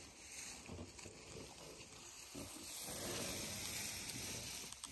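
African elephant's trunk sniffing and blowing air at close range in soft, breathy hisses as it inspects a person's grazed knee.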